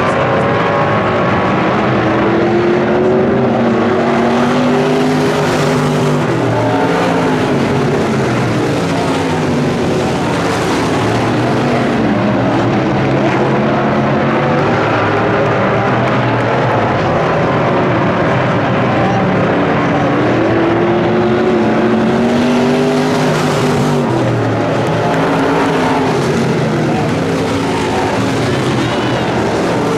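IMCA stock cars racing, their V8 engines revving and passing, the pitch rising and falling in repeated waves as the pack goes by.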